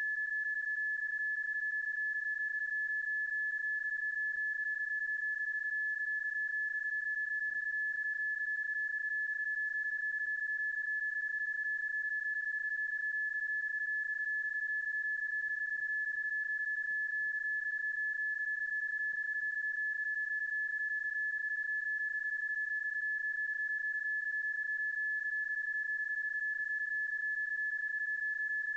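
PSK31 data-mode audio: a single steady high tone that holds one pitch throughout. It is a sound effect stretched and looped over the footage, not the decodable signal of the actual contact.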